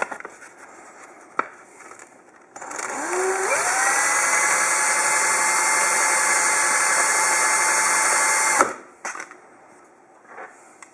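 Cordless drill spinning a plastic arrow nock held in its chuck against wrapped sandpaper. The motor winds up over about a second, runs steadily with a whine for about five seconds while the nock is sanded, then stops abruptly. A couple of light clicks come before it starts.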